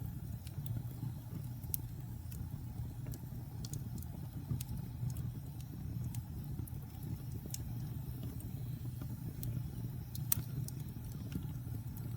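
Wood fire crackling: a steady low rumble of flames with scattered sharp pops, one louder pop about ten seconds in.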